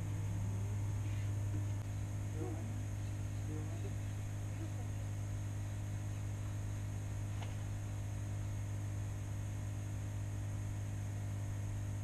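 A steady low hum that holds unchanged throughout, with a faint click about seven and a half seconds in.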